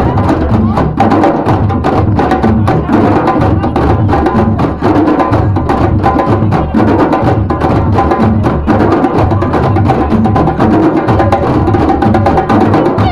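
A large ensemble of djembe drums playing together in a fast, driving rhythm: dense hand strikes with deep bass tones repeating under them.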